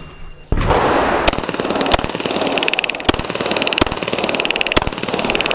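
A string of pistol shots fired in a timed USPSA stage, with the sharpest reports coming about once a second over a steady, dense noisy background.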